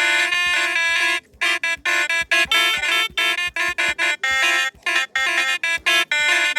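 Telolet basuri horn playing a tune: a quick run of short, abrupt horn notes, briefly pausing about a second in, then carrying on.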